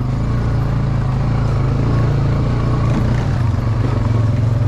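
Quad bike engine running steadily.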